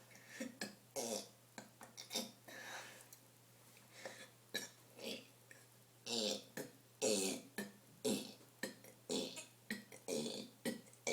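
A child burping over and over, a rapid series of many short burps one after another, coming closer together in the second half.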